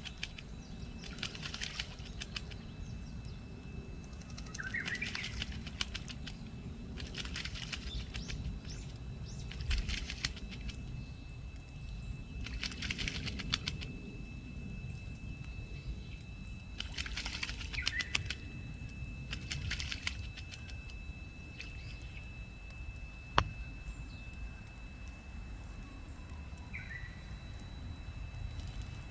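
Large-billed crow bathing: repeated bouts of splashing and wing-flapping in water, each lasting a second or two and coming every few seconds.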